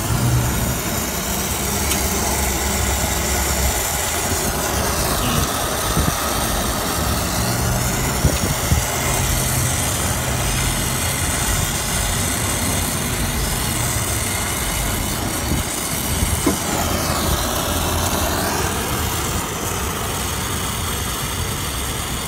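Brazing torch flame hissing steadily as it heats the copper joint of a filter drier to unbraze it. The tone dips and rises twice.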